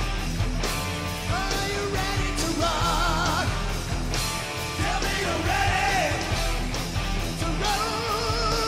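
Hard rock song played by a full band: steady drums and electric guitars under a sung vocal line.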